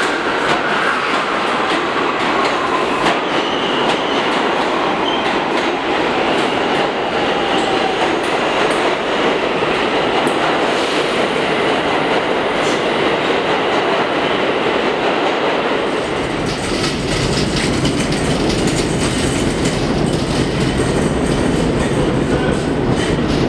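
New York City Subway R68 train running along the track through the station: steady wheel-and-rail rumble with clickety-clack over the joints, and a whine that falls in pitch over the first several seconds. About 16 seconds in, a deeper rumble with many clicks comes in as another train approaches.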